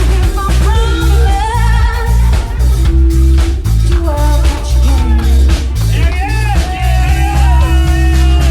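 Loud music with a heavy bass beat and a singer's voice.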